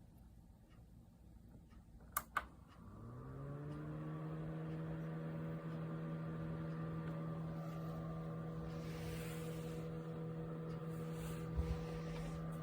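Troston desktop air cooler's fan: two quick clicks, then its small motor spins up with a rising hum and settles into a steady running hum.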